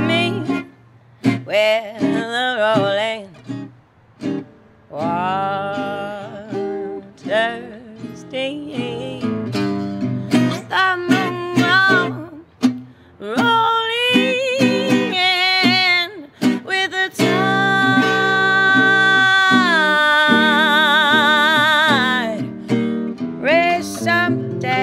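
A woman singing a slow song with strong vibrato, accompanied by a Selmer-Maccaferri-style gypsy jazz guitar with an oval soundhole. About two-thirds of the way in she holds one long note, its vibrato widening before it ends.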